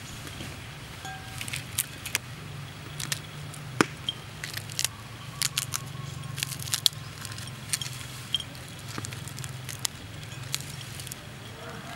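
Crisp grilled fish being broken apart and flaked off the bone by hand: irregular sharp crackles and snaps, over a steady low hum.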